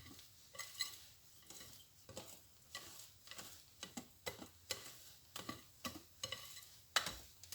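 Lemon cake batter being mixed by hand in a bowl. The utensil knocks and scrapes against the bowl in an uneven rhythm of about two to three strokes a second, with one louder knock near the end.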